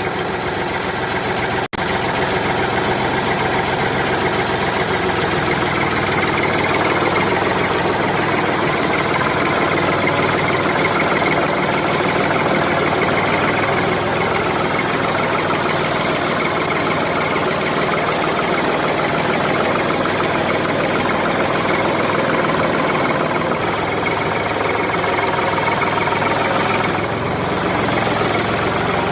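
Tractor engine running steadily with a knocking chug, with a brief cut about two seconds in.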